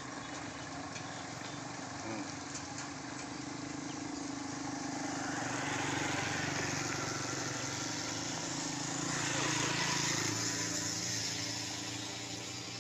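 Small motorcycle engines passing close one after another, the sound swelling about five seconds in and again near ten seconds, over the steady low running of a truck engine.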